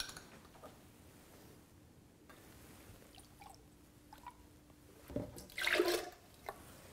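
Vegetable juice being poured from a bottle into a high-speed blender jar, faint at first and splashing louder in the last couple of seconds.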